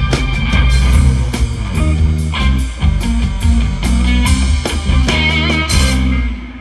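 Live rock band playing an instrumental passage with electric guitars, bass guitar and drum kit. It stops on a final crash about six seconds in.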